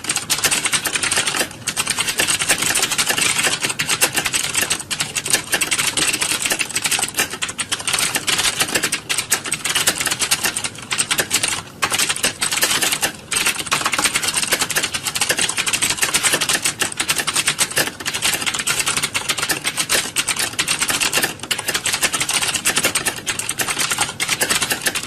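Many computer keyboards being typed on at once: a dense, continuous clatter of keystrokes with a few brief lulls.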